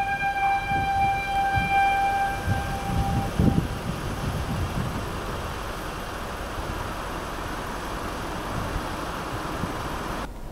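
Blasting warning siren holding one steady tone that fades out about three seconds in, followed by a few low thumps, the loudest about three and a half seconds in, then a steady hiss.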